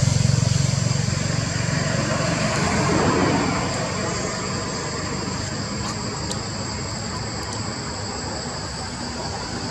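A motor vehicle's low engine rumble, fading away over the first few seconds, over steady outdoor background noise with two faint, thin, high steady tones.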